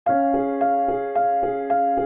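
Background music: a piano playing a steady repeated figure of notes, about four a second.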